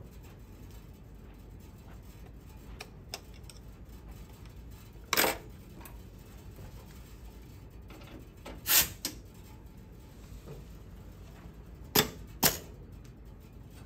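Sharp metal clicks and clinks of a screwdriver and presser-foot parts being fitted on a Kingtex VLD1500 industrial sewing machine: a couple of faint ticks, then four louder clicks a few seconds apart, the last two close together.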